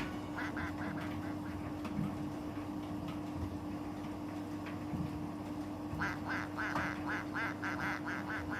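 Miele T5205 tumble dryer running with a steady hum and a rhythmic, quack-like squeak repeating about four times a second, which grows louder near the end.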